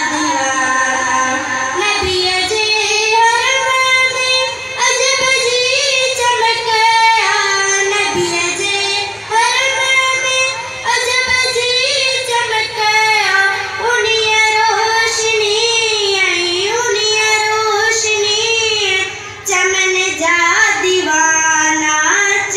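A girl singing a naat, an Urdu/Sindhi devotional song in praise of the Prophet, solo and unaccompanied into a microphone, with long wavering, ornamented held notes and a brief breath pause about two-thirds of the way through.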